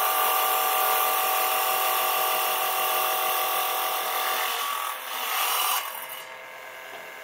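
Electric tile cutter running, its blade cutting through tile with a steady whine over a gritty grinding noise. The sound swells briefly, then drops away about six seconds in, leaving a faint hum.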